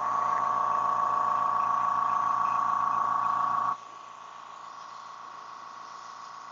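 Small airbrush air compressor motor running with a steady hum. About three and a half seconds in it drops sharply in loudness but keeps running, quieter.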